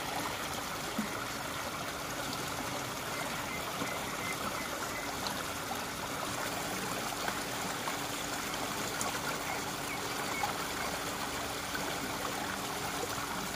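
Muddy floodwater flowing steadily and heavily along a drainage channel, a continuous rush of running water.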